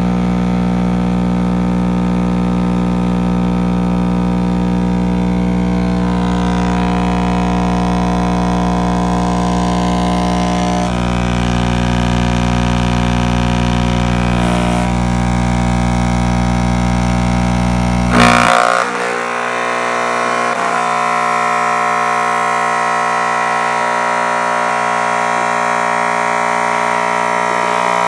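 Car subwoofer wired straight to household mains power, its cone buzzing with a loud, steady mains hum. About eighteen seconds in it crackles, and the deep low part of the hum cuts out, leaving a higher buzz: the overdriven voice coil giving way.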